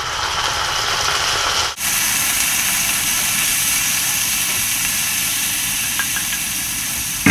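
Chicken pieces and their soy-sauce and vinegar marinade sizzling loudly in a hot cast-iron skillet, just added to the hot oil. The sizzle breaks off for an instant about two seconds in.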